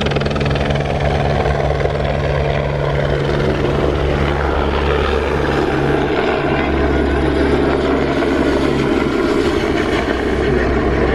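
Helicopter in flight, its rotor and engine making a steady low drone with an even hiss over it.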